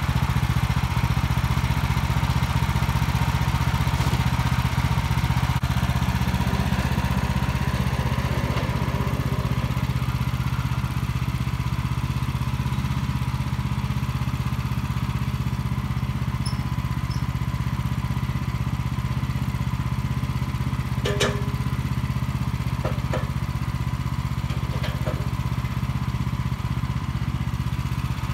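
WoodMaxx band sawmill's engine running steadily, with a few light knocks in the last third.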